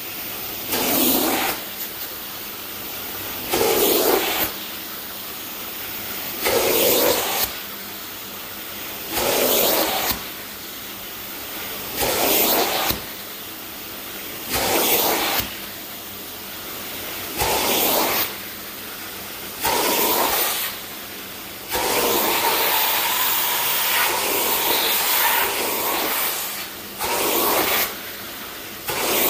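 Hot-water extraction upholstery tool on a fabric chair seat, its suction running steadily with a louder surge of spray and suction at each stroke, about every three seconds. This is the rinse and extraction pass that follows the pre-spray and agitation.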